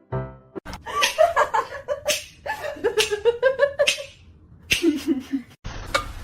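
A person laughing in quick repeated bursts, with music. A steady hiss begins suddenly near the end.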